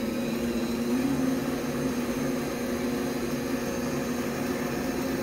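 Electric stand mixer running steadily, its beaters mixing cookie batter in a stainless steel bowl: an even motor hum.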